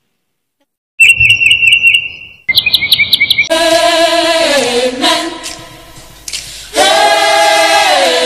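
About a second of silence, then a bird chirping in two quick trills of high notes, followed by a choir singing a cappella in long, slowly gliding held chords.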